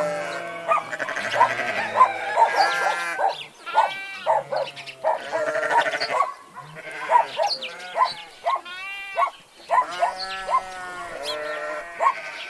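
Farmyard animal calls: sheep bleating over and over with long, quavering, overlapping bleats. Short sharp calls from other farm animals and birds fall in between.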